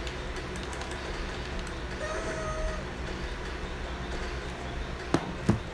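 Steady low background rumble and hum with no speech, with two sharp knocks near the end.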